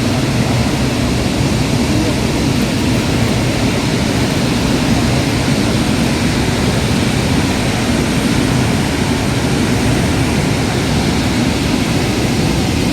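Steady, loud roar of falling water from Chitrakote Falls, the Indravati River's horseshoe waterfall, an unbroken rushing noise weighted toward the low end.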